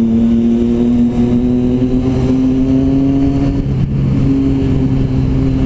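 Motorcycle engine running under steady throttle while riding, its note slowly rising in pitch, with a brief break about three and a half seconds in before it settles again.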